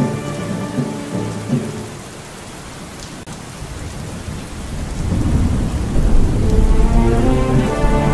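Steady heavy rain with a long rumble of thunder that builds about halfway through and rolls on to the end.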